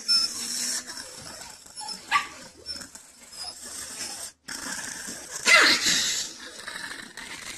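Long-haired Chihuahua making a run of short, noisy vocal sounds with its mouth open. The loudest comes about five and a half seconds in and falls in pitch.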